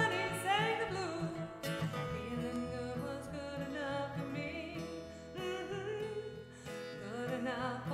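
Acoustic guitar playing a strummed country-style accompaniment. A woman's sung line trails off about a second in, and her voice comes back near the end.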